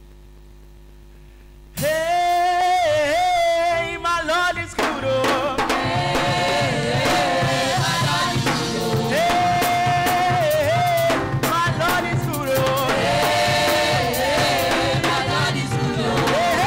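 A faint steady hum, then about two seconds in a single voice starts singing a gospel praise song through the PA. From about five seconds the drum kit and band come in under the singing, which carries on over the music.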